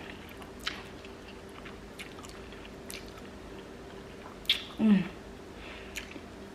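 Close-miked eating sounds: food being chewed, with scattered sharp wet mouth clicks. About five seconds in there is a short low vocal sound that falls in pitch.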